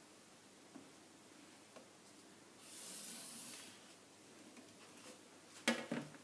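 A felt-tip marker drawn across pattern paper along a plastic ruler: one hissing stroke lasting about a second. Near the end, a few sharp clicks of plastic rulers being handled.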